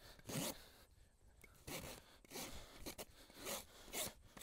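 Farrier's hoof rasp filing a young horse's hind hoof: about half a dozen short scraping strokes, roughly one every half second to second.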